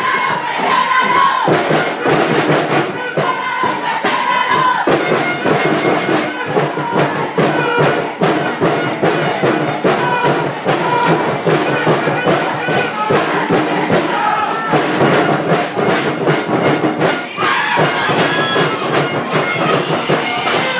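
Crowd of spectators at a football game, voices shouting and cheering over music with frequent percussion hits.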